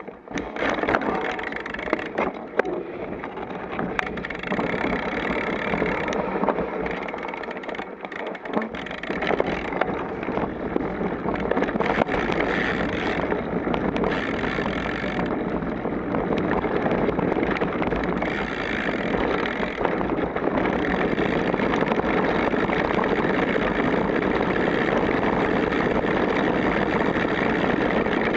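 Mountain bike descending a dirt singletrack: a steady rush of wind and tyre noise on the camera's microphone, with frequent knocks and rattles from the bike over bumps in the first half, then a smoother, steadier rush.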